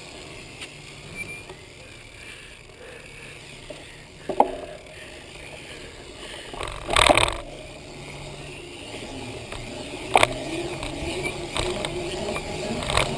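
Bicycle being ridden: tyres rolling with a steady low rumble, broken by three sharp rattles or knocks, the loudest about seven seconds in.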